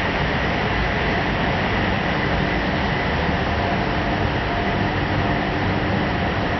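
A high-speed 1700 mm slitting and rewinding machine running: a steady mechanical whir of rollers and moving web, with a faint steady whine over it.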